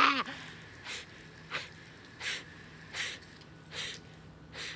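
A woman panting hard with her mouth open: six audible breaths about two-thirds of a second apart, just after a loud vocal cry cuts off at the start.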